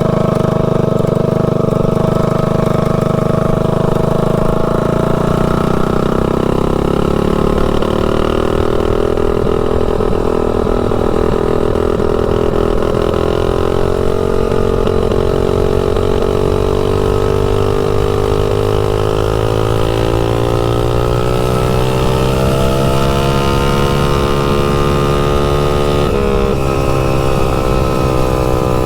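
Mini bike's Tillotson 225cc single-cylinder engine running under load through its header pipe, riding on the road. Its pitch sags a few seconds in, then climbs steadily as the bike gathers speed, drops sharply about 26 seconds in and climbs again.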